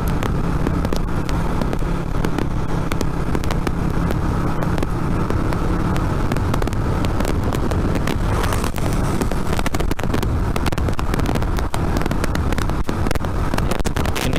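2007 Yamaha Vixion's single-cylinder four-stroke engine running steadily while cruising at about 40–47 km/h, a constant low drone mixed with road and wind noise.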